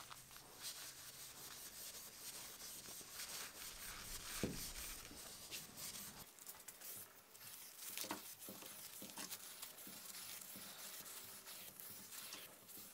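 Faint scratching and rubbing of a pad scrubbed along a rust-blued rifle barrel, with a few light knocks: the loose black oxide is being scratched off after boiling to reveal the new bluing.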